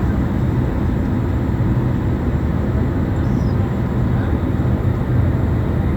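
A boat's engine running steadily, a low, even drone.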